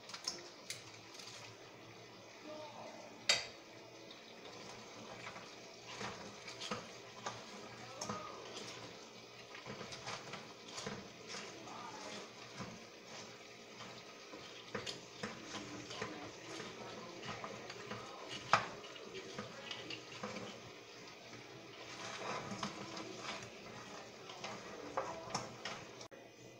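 Metal tongs and a spatula clacking and scraping against a nonstick wok as fried chicken pieces are tossed in simmering buffalo sauce, over a steady low sizzle. Two sharper knocks stand out, one a few seconds in and one past the middle.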